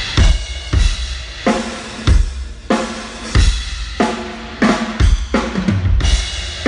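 Drum kit played at a sound check: a steady beat of kick drum hits with snare strikes and ringing cymbals over them.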